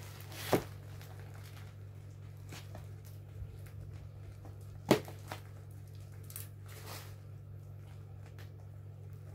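A plastic-wrapped mail parcel being handled and set down, with two sharp knocks (about half a second in and about five seconds in) and a few faint ticks, over a steady low hum.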